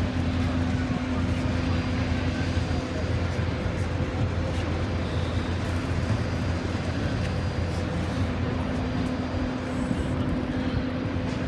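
Steady machinery drone from a parked jet airliner and its ground equipment, a low hum with a steady tone on top that fades out for a few seconds in the middle and returns.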